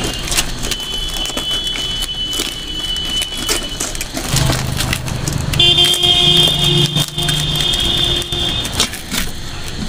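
Banana leaves crackling and rustling as they are folded and pressed down over a steel cooking pot. Over this, a steady high tone runs for the first few seconds, then a louder, lower steady hum with a high whine above it starts about four seconds in and stops near the end.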